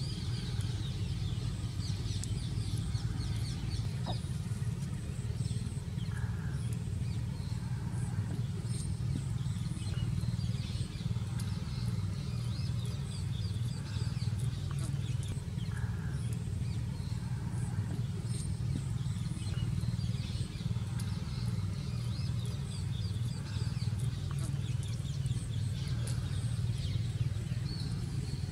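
A steady low rumble, with many short, high bird-like chirps repeating over it.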